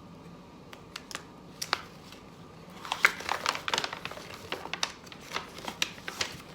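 Packaging and small items handled by hand: crinkling and light clicks and taps, scattered at first and busier from about three seconds in.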